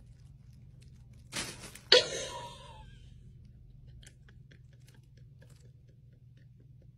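A cat moving and pawing inside a crinkly fabric cat tunnel: a rustle about a second in, then a sharp, loud crunch just before two seconds that fades over about a second, followed by faint scattered ticks.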